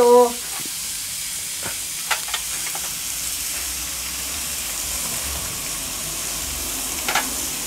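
Meat strips sizzling on a hot griddle plate on a gas grill: a steady hiss, with a few light clicks of metal tongs against the plate as the pieces are turned.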